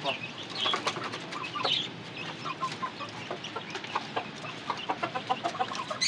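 Chickens clucking and chicks cheeping, with many short taps and rustles from grain being scattered on a concrete floor.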